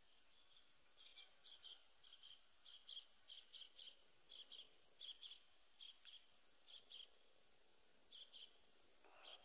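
Faint insect chirping: short high chirps in pairs, a little over one pair a second, over a steady thin high-pitched hum. The chirps start about a second in and pause briefly near the end.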